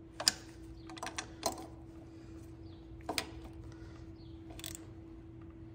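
Ratchet wrench with an 11 mm socket clicking in about five short bursts while nuts are snugged down onto the carburetor's plastic air intake.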